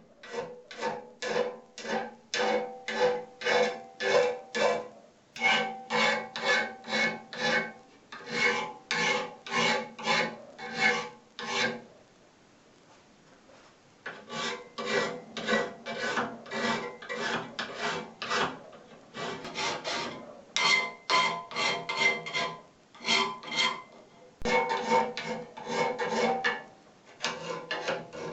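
Rhythmic back-and-forth scraping strokes of hand filing on a workpiece, about two to three strokes a second, in runs broken by short pauses and one quiet gap of about two seconds around the middle. Each stroke carries a faint ringing note.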